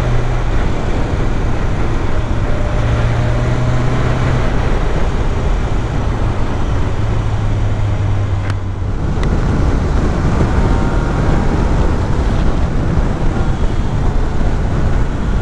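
Motorcycle riding at road speed: the engine runs steadily under heavy wind rush on the microphone, its note dropping slightly a couple of times. There is a brief break in the sound about nine seconds in.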